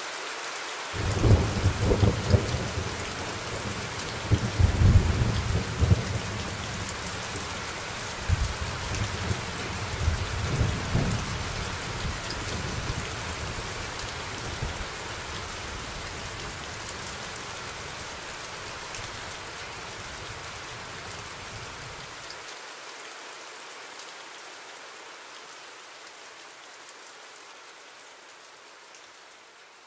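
Steady rain with a long roll of thunder starting about a second in, loudest in the first few seconds and again around ten seconds. The rumble cuts off a little past twenty seconds, and the rain then slowly fades out.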